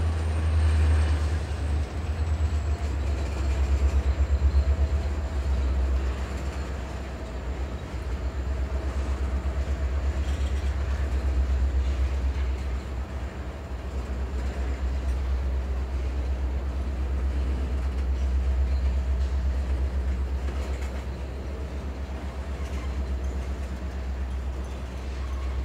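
Norfolk Southern freight train rolling steadily past: a deep continuous rumble with a rapid clatter of wheels over the rail.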